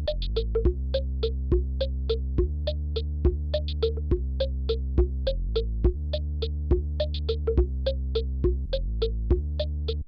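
Background music: held low chords under short plucked notes in a steady rhythm of about four notes a second.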